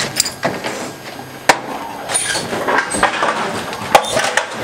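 Plastic dog crate with a wire door being unlatched and opened, sharp metallic clicks and knocks with rattling, the loudest about a second and a half in. Near the end the crate rattles as a Belgian Malinois climbs out.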